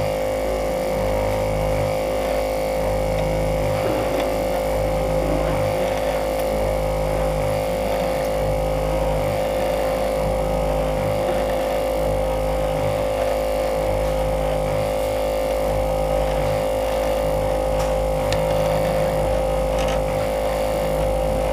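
Steady machine hum with one strong pitch and several fixed overtones over a low rumble, from a running heated LCD screen separator machine.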